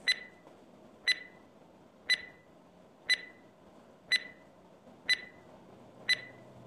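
Countdown-timer sound effect: a short, high tick with a slight beep to it, once a second, seven times.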